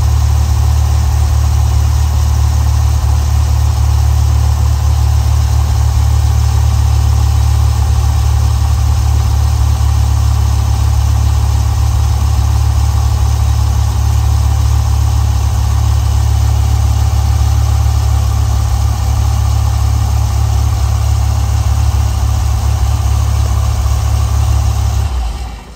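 Dodge Viper V10 engine idling steadily, warming up after a cold start. The sound dies away near the end.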